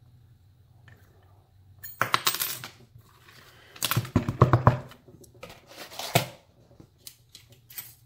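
Small metal lock picks and tension wrenches clinking and clattering as they are pulled out of a padlock and set down on a wooden desk, in four short bursts, the loudest about halfway through.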